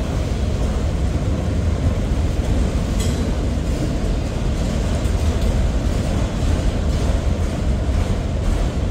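Freight train autorack cars rolling past, a steady heavy rumble of wheels on rail with a sharp click about three seconds in.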